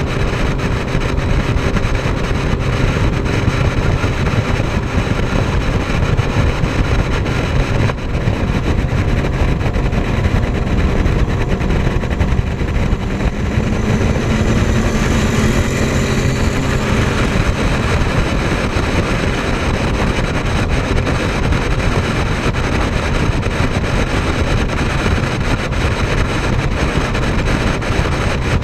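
Steady low rumble of engine and wind noise, with a speedboat's engine passing close about halfway through: a humming engine tone and rushing hiss that swell for a few seconds, then fade back into the rumble.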